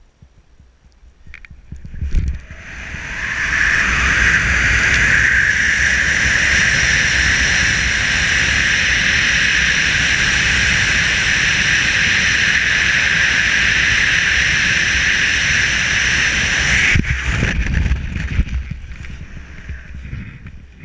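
Freefall airspeed wind rushing over a helmet-camera microphone: it builds quickly about two seconds in, then holds as a loud steady rush. About 17 seconds in it drops abruptly with a low jolt, as the parachute opens, leaving lighter, gustier wind under the canopy.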